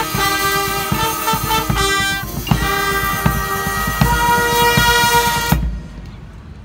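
High school marching band's brass and front-ensemble percussion playing the closing phrases of the show, with drum hits under the chords, ending on a long held brass chord that cuts off about five and a half seconds in.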